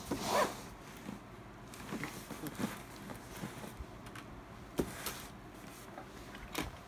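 Cardboard shipping box being handled and turned over on a desk. A loud scrape of cardboard comes at the start, followed by scattered taps and knocks, the sharpest a little under five seconds in.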